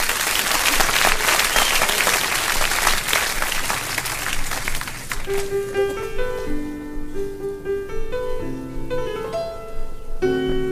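Audience applauding, dying away about halfway through, then a piano begins a song's introduction, playing a melody of single notes and chords.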